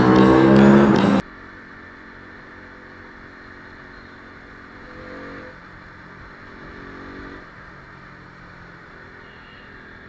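A loud vehicle engine revving hard and accelerating, its pitch climbing, cut off abruptly about a second in. Then a low, steady hum of road and engine noise from a motorcycle riding in traffic.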